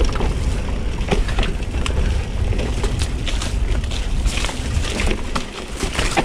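Full-suspension mountain bike descending a steep, rough dirt drop-in: tyres crunching over stones and loose ground, with irregular sharp clicks and crackles of brush and twigs snagging and snapping against the bike, over a steady low rumble of wind and rolling noise.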